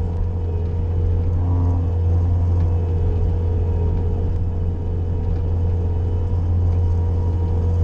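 Bobcat skid-steer loader's engine running steadily in a deep drone, with a steady whine over it.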